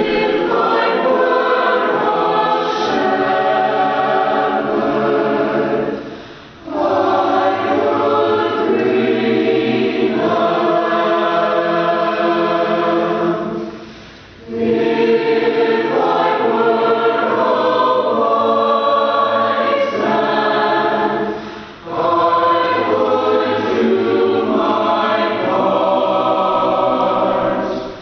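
Mixed choir of men's and women's voices singing sustained chords in long phrases, with brief breaks for breath about every seven to eight seconds.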